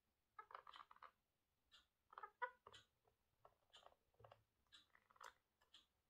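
Pet parrot chattering softly to itself: a string of short clicks and brief chirps, some in quick clusters, loudest about two and a half seconds in.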